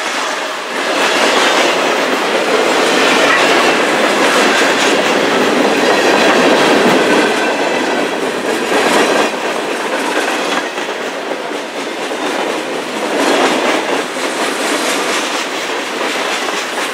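Freight train cars passing at close range, their steel wheels rolling and rattling on the rails in a steady loud rush of noise. The noise grows louder for a moment about nine seconds in and again about thirteen seconds in.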